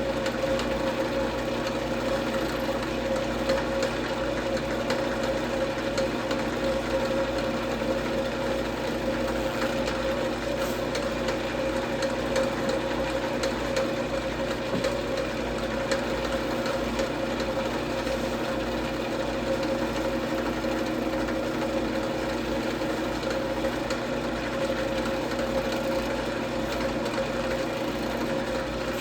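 Wood lathe running at a steady speed, its motor giving an even hum with a constant tone.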